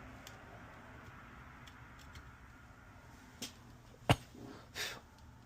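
Light clicks and taps of hand tools on a circuit board while the old solder is being removed, with one sharp click about four seconds in and a brief scrape just after.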